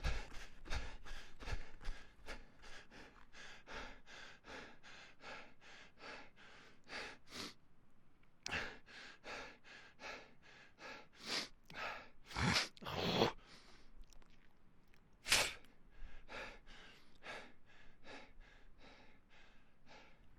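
A person panting hard from running, in quick rhythmic breaths about three a second. Footfalls thump under the breathing for the first two seconds, and several deeper, louder gasping breaths come between about eight and sixteen seconds in.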